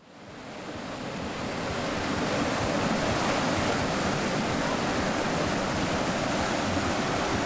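Whitewater rushing through an artificial kayak canal: a steady wash of churning rapids that fades in over the first two seconds.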